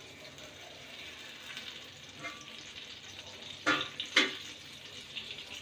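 A block of butter melting in a hot kadhai, giving a faint steady sizzle. Two short scraping knocks come about three and a half and four seconds in.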